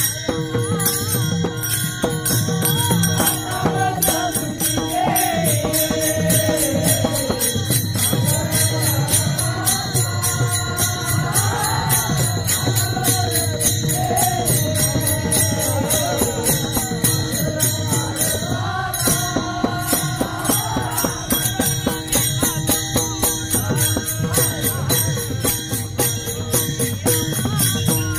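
Marathi devotional kirtan music. A voice sings a flowing melody over a steady, fast rhythm of small hand cymbals (taal) and a sustained drone; the singing fades out for the last several seconds while the cymbals keep going.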